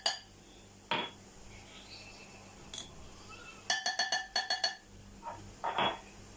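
A drinking glass clinking in the kitchen as glassfuls of flour are added to a batter bowl. A few single knocks, then a quick run of about eight ringing clinks within a second, then one more knock.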